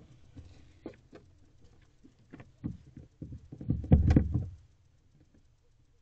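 Barn owl moving about inside a wooden nest box: its talons scratch and knock on the wood in scattered scrapes, with a louder flurry about four seconds in.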